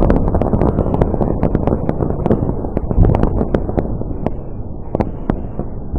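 Crackling tail of an aerial firework burst: many sharp crackles over a low rumble, slowly dying away.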